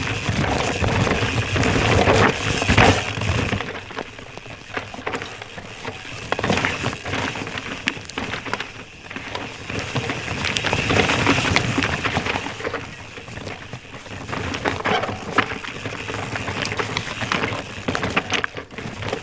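Nomad LT mountain bike riding over dirt, roots and twigs: knobby tyres crunching and crackling, with rattles and clicks from the bike. The noise rises and falls several times.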